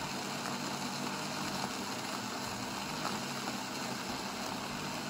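Siemens EQ.300 bean-to-cup coffee machine's grinder running steadily, grinding beans for the second cup of a double brew.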